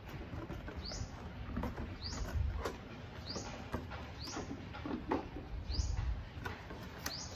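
An IKEA Godmorgon smoked-acrylic two-drawer chest being pulled out of its cardboard box: scraping, knocks and soft thumps of cardboard and plastic. Behind it, a short high rising chirp repeats about once a second.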